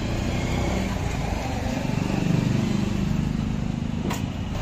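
An engine running steadily, with a faint voice in the middle and a sharp click about four seconds in.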